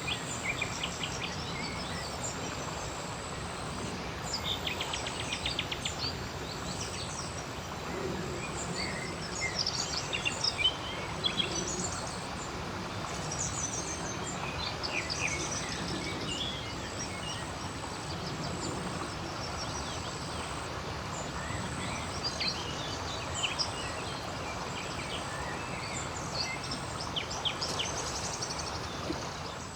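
Outdoor nature ambience: birds chirping and calling throughout over a steady background rush, with frogs calling now and then.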